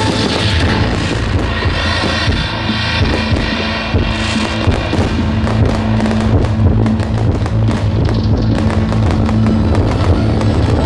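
Fireworks bursting in the air with crackling reports, over loud music with a heavy steady bass. The bangs and crackles come thicker in the second half.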